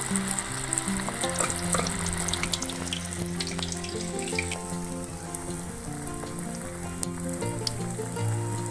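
Pitha batter frying in hot oil in a wok: a dense sizzle with scattered sharp crackles, easing somewhat about halfway through.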